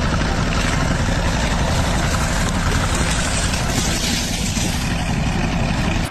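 A machine engine running steadily with a low rumble under dense noise, cutting off suddenly at the end.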